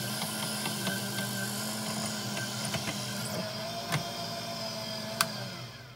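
Wood lathe motor running while a 33/64-inch twist drill in the tailstock chuck bores a spinning ebonite blank, with scattered small clicks from the cutting and the chips. The bit is backed out about four seconds in, a sharp click follows about a second later, and the lathe's hum dies away just before the end.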